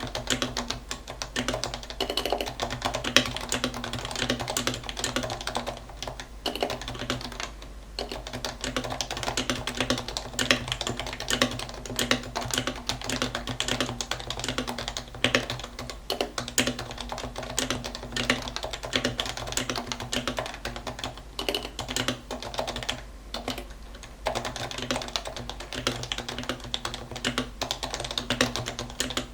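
Continuous typing on a Norbauer Norbaforce Mk II keyboard with lubed Topre 45g electro-capacitive rubber-dome switches in a steel-plated case: a fast, steady stream of keystrokes, broken by short pauses about 8 seconds in and again around 23 seconds in. A low steady hum runs underneath.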